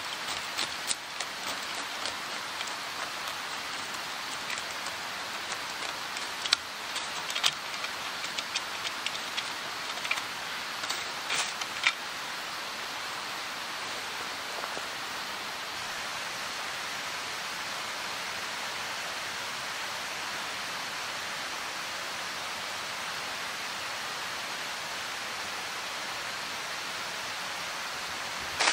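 A steady outdoor hiss, with scattered sharp ticks and clicks over roughly the first twelve seconds, then only the even hiss.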